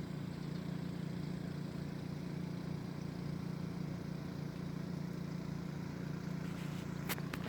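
A steady low mechanical hum, with a few short sharp clicks near the end.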